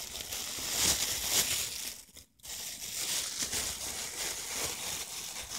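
Plastic bag crinkling and rustling as a hand rummages through the candy inside it, with a brief pause about two seconds in.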